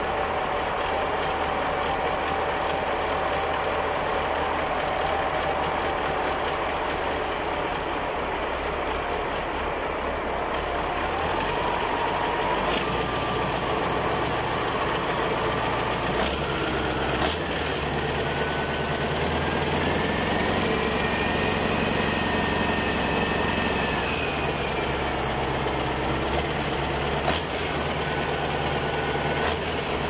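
Caterpillar 3408 V8 diesel engine running, with a whine that rises in pitch about a third of the way in, climbs again in the middle, and falls back near the end as the engine speed changes.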